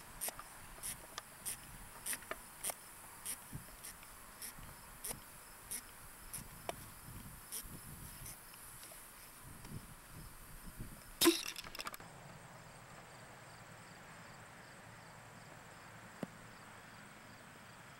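A pump-up air rocket launching: a sharp pop and short rush of released air about eleven seconds in, much the loudest sound, after a run of light irregular clicks. Crickets chirp faintly underneath.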